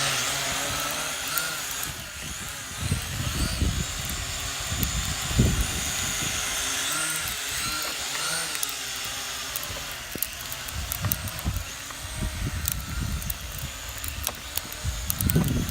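Vivitar Aeroview DRC446 quadcopter's motors and propellers whining, the pitch wavering up and down. Wind buffets the microphone with low rumbles in several bursts.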